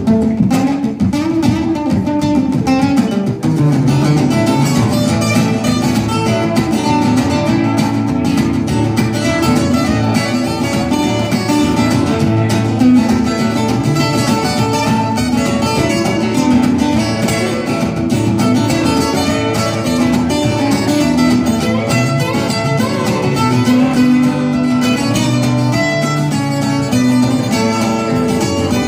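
Acoustic guitar played solo: an instrumental piece, picked and strummed without a pause.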